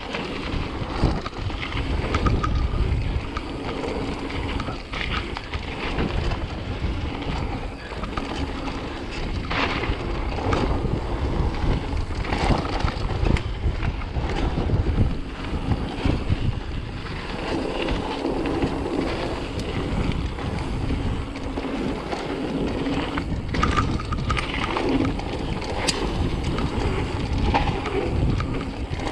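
Mountain bike riding a rough downhill trail: steady wind buffeting on the microphone over the rumble of tyres on dirt, with frequent knocks and rattles from the bike over bumps.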